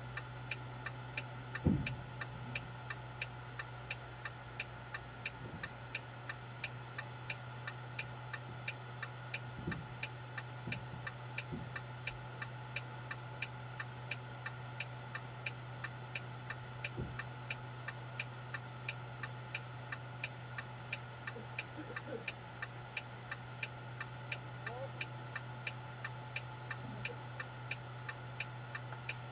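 Truck's turn-signal flasher ticking steadily and evenly, as with the hazard lights on in the cab, over a low steady hum. A single thump comes about two seconds in, and a few faint knocks follow later.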